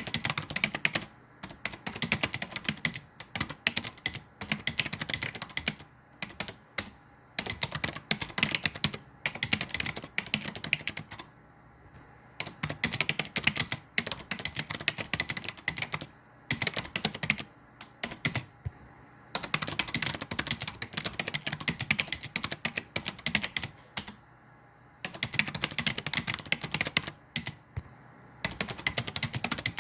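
Typing on a computer keyboard: rapid runs of key clicks lasting a few seconds each, broken by short pauses.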